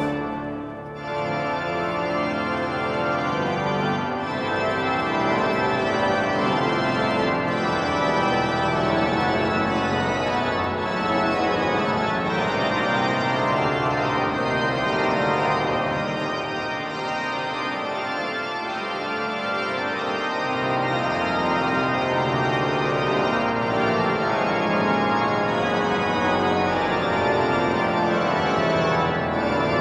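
Cathedral pipe organ playing sustained full chords.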